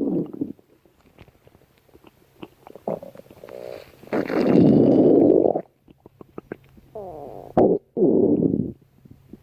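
A person's stomach growling and gurgling in irregular bouts. The longest rumble comes about four seconds in, with shorter ones at the start and near the end, and small pops and a squeaky, sliding gurgle in between.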